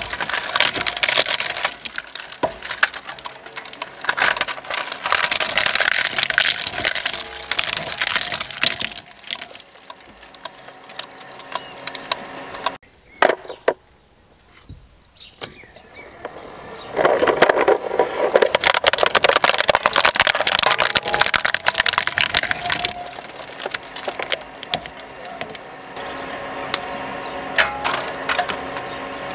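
Twin-shaft shredder chewing up plastic toy vehicles: dense cracking and crunching of plastic breaking between the slow-turning cutter discs. The crunching fades and stops briefly, then comes back loud for several seconds. Near the end it settles to the shredder running steadily with a high thin whine.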